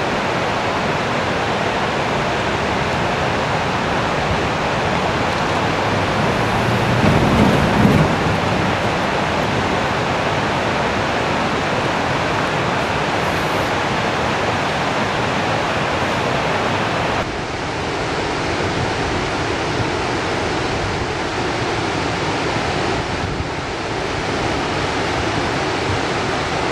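Steady rushing of a muddy flash flood pouring down a sandy creek bed. A gust of wind buffets the microphone about seven seconds in, and the rush drops a little in level about seventeen seconds in.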